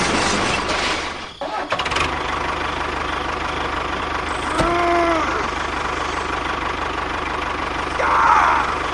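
Engine-like running of a miniature tractor, a steady mechanical drone with a fast low rhythm. A short tone rises and falls about halfway through.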